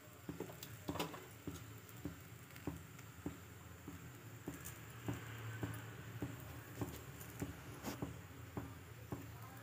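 Faint sounds of a rolled aloo paratha cooking dry on a hot iron tawa over a gas flame: soft ticks about two or three times a second over a low hum.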